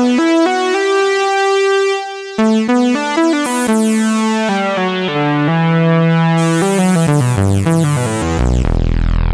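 Korg Krome synthesizer workstation playing a bright synth patch in notes and chords. The filter cutoff is turned up and down on the real-time knobs while playing, so the tone brightens and darkens in steps. A deep bass note comes in near the end.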